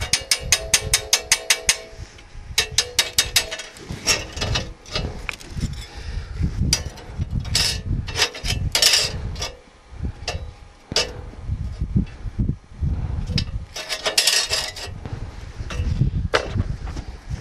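Chipping hammer knocking slag off fresh stick welds on small metal strips: fast runs of sharp metallic taps, about four a second, with some ringing, coming in bursts with short scraping sounds in between.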